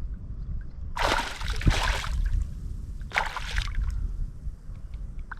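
Water splashing in two short bursts, about a second in and again after three seconds, over a low steady rumble of wind on the microphone.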